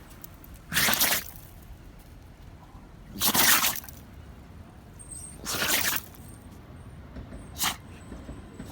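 A Kishu dog sneezing repeatedly: three loud, sharp bursts about two seconds apart, then a shorter fourth one near the end.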